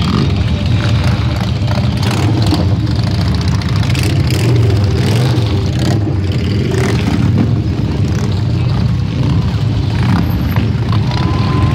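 A procession of heavy cruiser and touring motorcycles rumbling past at low speed, one after another, their engines running steadily with no break.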